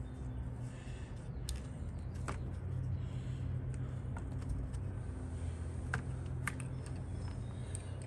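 Scattered light clicks and rattles of steel screwdriver bits being handled in a plastic bit case and fitted to a cordless drill, over a low steady background hum.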